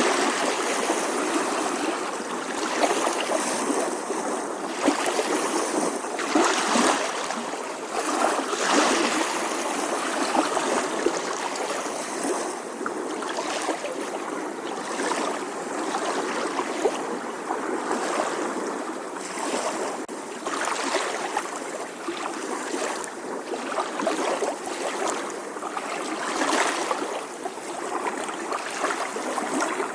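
Small ocean waves lapping on a shore: a continuous wash of water, swelling in short surges every few seconds.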